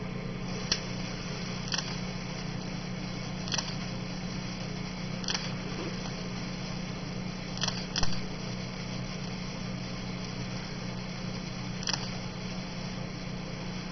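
A burning sparkler gives sharp pops every one to four seconds, the loudest a quick double pop about eight seconds in, over a steady hiss and low hum.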